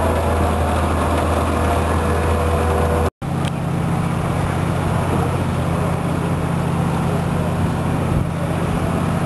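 Steady low drone of a vessel's engine. The sound drops out briefly about three seconds in and the drone resumes at a somewhat higher pitch.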